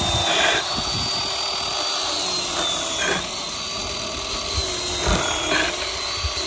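Ryobi cordless chainsaw running with a steady high electric whine, sawing through a block of cheddar cheese. The pitch dips briefly about three times as the chain takes the load.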